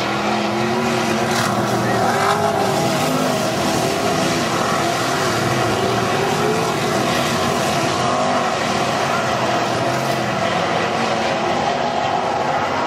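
A pack of non-wing sprint cars racing on a dirt oval, their V8 engines running hard, with pitches that rise and fall as the cars go through the turns, heard from the grandstand.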